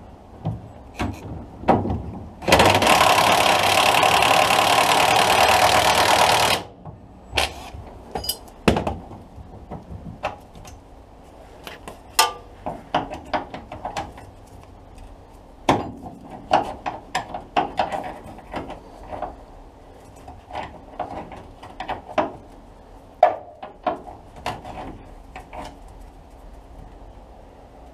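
An impact gun runs in one loud burst of about four seconds, a couple of seconds in, undoing a bolt. The rest is scattered clicks and knocks of tools and metal parts being handled.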